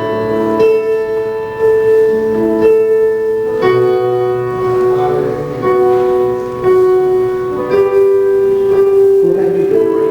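Slow, sustained piano or keyboard music, held chords changing every second or two.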